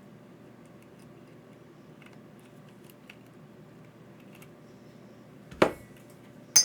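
Faint ticks of small parts and tools being handled on a workbench, then two sharp clacks about a second apart near the end.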